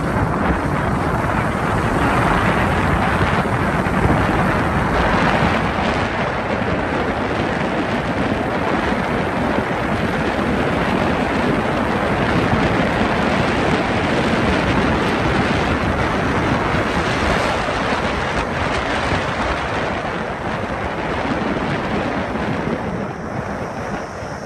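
Wind rushing and buffeting over the microphone of a moving motorbike, mixed with the bike's riding noise; it eases off over the last couple of seconds.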